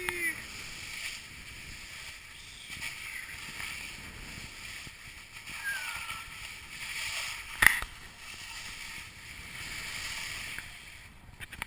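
Skis sliding and scraping over snow on a downhill run, with wind on the microphone, the noise swelling and easing with the turns. A brief falling call right at the start, and a single sharp knock about eight seconds in, the loudest moment.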